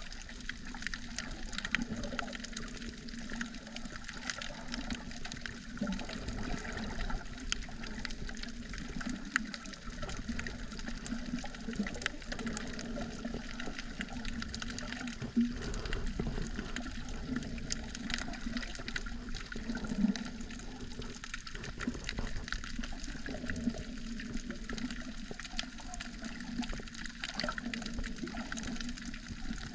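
Underwater sound picked up by a submerged camera: a steady wash of water with many faint clicks and crackles scattered throughout.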